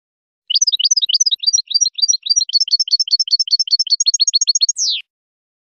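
European goldfinch singing one phrase: a fast, even run of short, high twittering notes, about nine a second, closing with a single downward slur.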